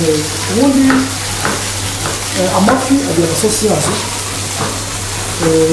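Fish fillets sizzling in a ridged grill pan over a gas flame: a steady frying hiss.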